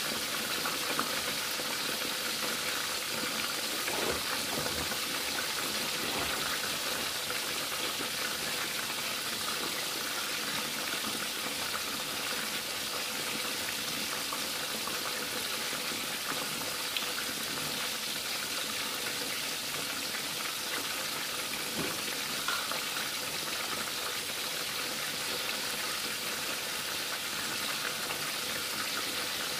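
A whole tilapia frying in a pan of hot oil: a steady sizzle, with a few faint pops.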